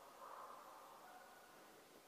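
Faint, distant baying of an Estonian hound running a hare, the calls coming and going in drawn-out stretches and fading toward the end.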